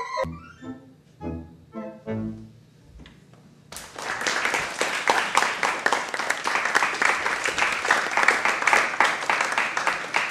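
The Allen ADC 4600 digital organ plays a few short closing chords, then after a brief pause, about three and a half seconds in, an audience breaks into steady applause.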